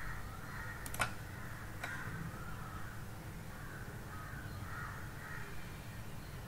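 Faint cawing of crows over a low steady hum, with a sharp click about a second in and a softer one near two seconds, from a computer mouse clicking through to a web page.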